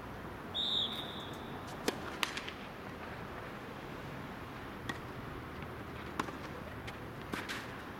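Tennis ball struck by rackets and bouncing on the court during a rally, heard as sharp pops a second or more apart. A brief high-pitched tone sounds about half a second in.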